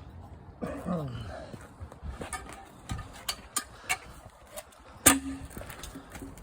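Knocks and clanks of a log being worked by hand onto the steel bed of a Woodland Mills HM122 sawmill: a run of sharp knocks, then one loud metallic clank about five seconds in that rings briefly. A falling, drawn-out call sounds near the start.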